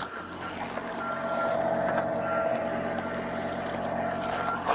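Short electronic beeps about once a second over a steady lower tone and a low hum, with fabric rustling against a body-worn camera microphone.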